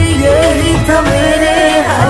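Hindi pop song playing: a gliding melody over sustained low bass notes.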